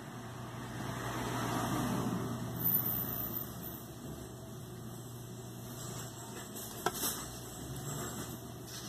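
Steady low hum over background noise, swelling for a couple of seconds near the start, with one sharp click about seven seconds in.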